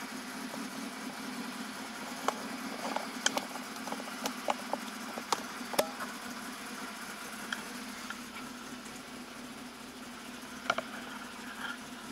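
Citroën GS air-cooled flat-four engine running steadily, heard from inside the cabin. A scatter of sharp clicks and knocks sounds in the first half, with another pair near the end.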